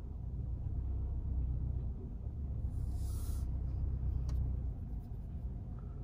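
Low, steady rumble of a car's engine and road noise heard from inside the cabin in slow traffic. A short hiss comes about three seconds in, followed by a single click a second later.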